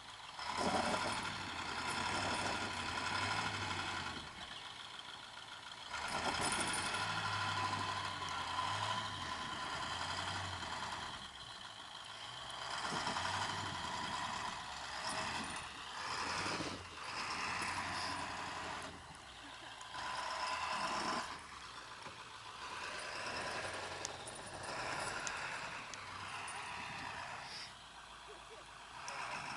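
UPS delivery truck straining to drive out of deep snow, its engine and drive rising and falling in surges every few seconds.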